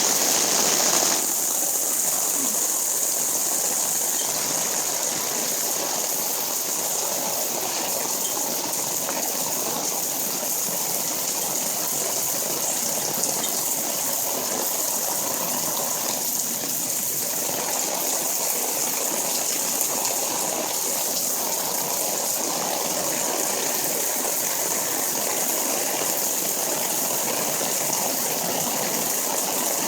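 Rainwater gushing steadily from rain gutters.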